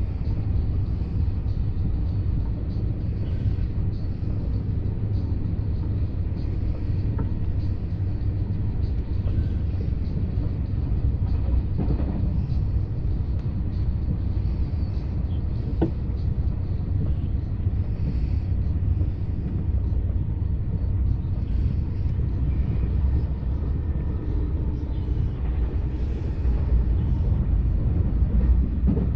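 Steady low rumble of a double-deck TGV Duplex high-speed train rolling along the track, heard from inside the passenger car.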